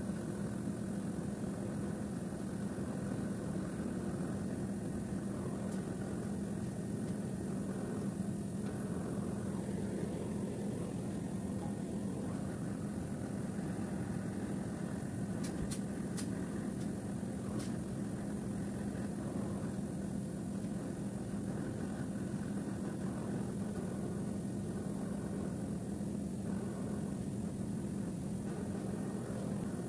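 Steady hum of running air-conditioning condensing units, a constant low drone that does not change. A few faint clicks sound about sixteen and eighteen seconds in.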